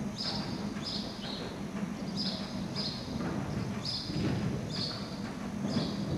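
Horse cantering on a sand arena surface, its hoofbeats dull and uneven, with short high chirps repeating every half second to a second.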